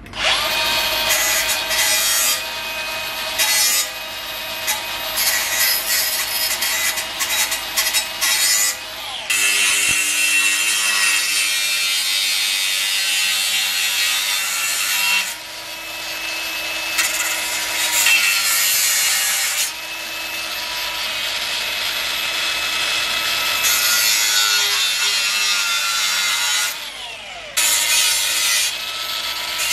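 Cordless angle grinder with a cut-off disc cutting steel at a car's rear brake hub, in several long cuts with brief pauses between them, the motor pitch shifting as the disc loads up.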